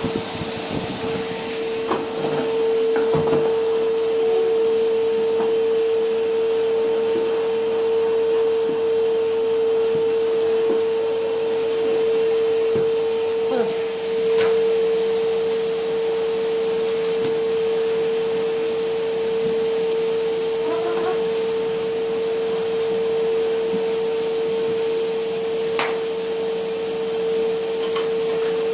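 Numatic Henry canister vacuum cleaner running steadily: a constant motor whine over rushing air. A few light knocks are heard, about halfway through and again near the end.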